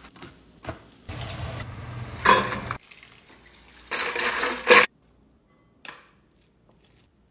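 Kitchen food-prep noises in a few short bursts: rustling and clattering of food and utensils in mixing bowls, loudest about two and four seconds in, then a single click and quiet near the end.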